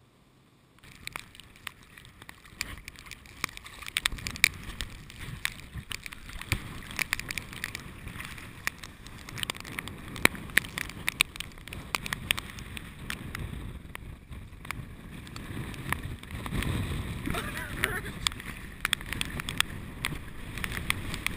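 Wind buffeting the camera's microphone: a steady rush with irregular crackles and low gusts that swell and fade. It starts after about a second of near silence.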